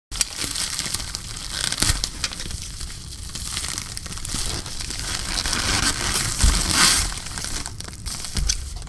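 Shipping packaging being torn open and crinkled by hand, a steady rustling and crackling with a louder tearing stretch around six to seven seconds in.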